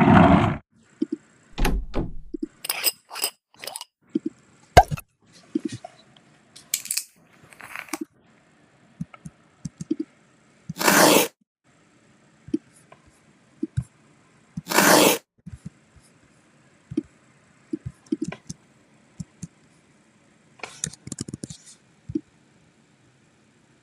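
A string of short, unrelated sound effects played one after another with dead-silent gaps between them: mostly sharp clicks and knocks, plus two longer noisy whooshes about eleven and fifteen seconds in.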